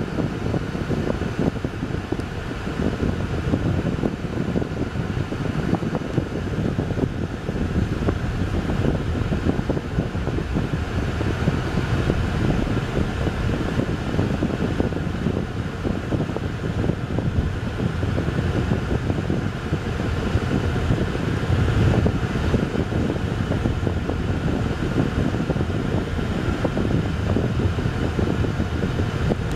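Road noise inside a moving car's cabin: a steady low rumble of tyres on a patched country road, with a fainter steady hiss over it.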